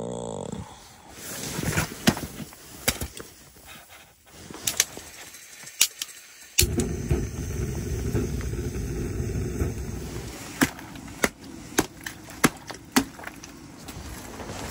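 A series of sharp clicks and taps. About six and a half seconds in, a steady low rushing sound starts and keeps going: a butane canister camp stove burner running.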